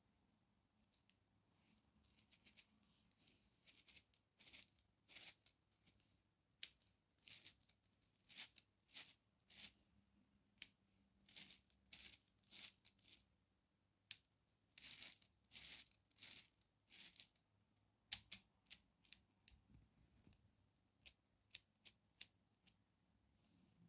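Plastic clicking and short scraping rattles as a LEGO Technic gearbox is shifted by hand through its gears with a beam lever, in irregular bursts.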